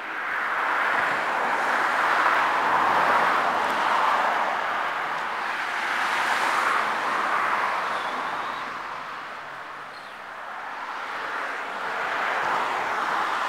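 Road traffic passing: a steady wash of tyre and engine noise from passing cars, swelling and fading as each vehicle goes by.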